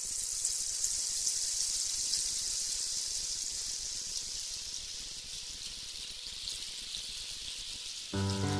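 Steady patter and hiss of falling rain. Music comes in near the end.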